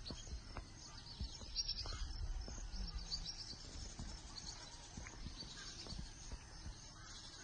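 Dawn wetland ambience: many small bird chirps and insect calls in a busy high layer, over a low rumble with scattered clicks.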